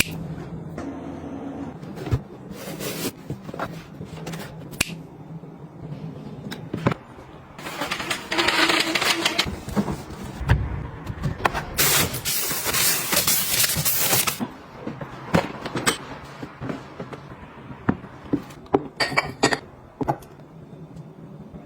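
Household items being handled and put away: a run of scattered clicks and knocks, with two longer bursts of hiss, the second the louder, about a third and halfway through.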